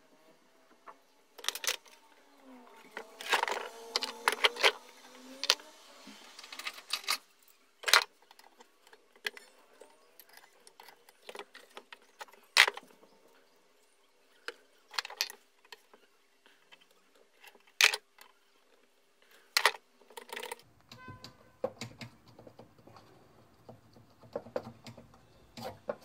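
Irregular metallic clicks, clinks and short scrapes of metal parts and hand tools being handled while an electric planer is dismantled: the blade clamp plates and blades coming off its cutter drum. A longer stretch of rubbing and scraping about three to five seconds in, and the sharpest clinks near the middle.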